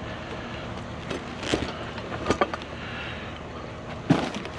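A handful of short knocks and clanks from objects being handled and pulled at in a pile of scrap, the loudest near the end, over a steady background rumble.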